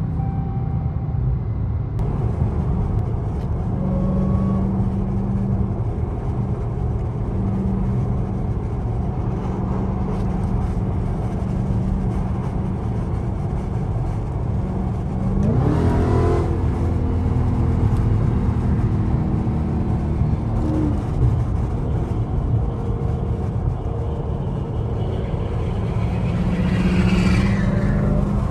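Supercharged 6.2-litre HEMI V8 of a 2022 Dodge Challenger SRT Hellcat Redeye Widebody running under way. A steady drone, with the revs climbing steeply about halfway through and again near the end as the car accelerates.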